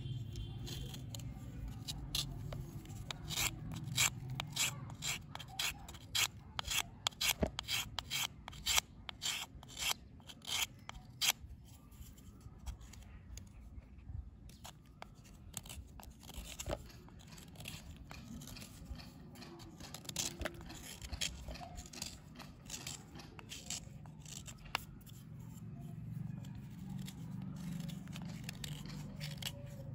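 A small metal blade scraping and shaving a dry, crumbly bar held in the hand: short gritty scraping strokes. They come in quick succession for roughly the first twelve seconds, then fewer and softer.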